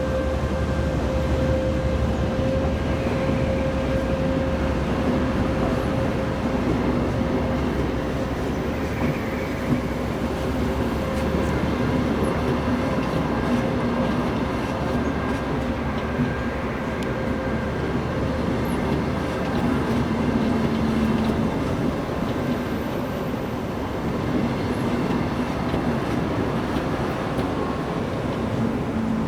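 A TEP70BS diesel locomotive hauling an ES1P Lastochka electric train as it moves off: a steady rumble of the moving train with a constant hum.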